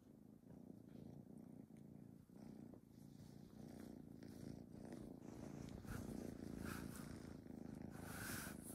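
Kitten purring: a faint, steady low rumble that grows gradually louder.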